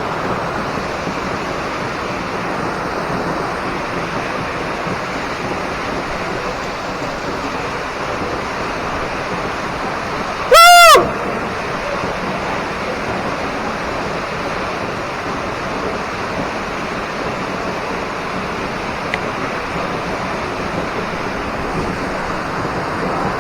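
Waterfall rushing steadily, heard close by. About ten seconds in, one short, very loud high call rises and falls in pitch over about half a second.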